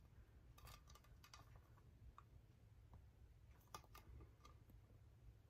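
Near silence: room tone with a scattering of faint, short clicks as a stained, crazed ironstone platter is handled and turned over in the hands.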